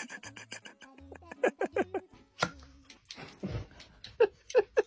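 Pet dog whining in short yips, in two quick runs of about three calls each.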